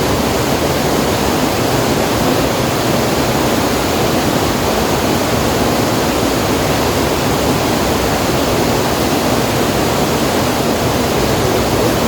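Steady rushing noise of flowing river water, loud and even throughout.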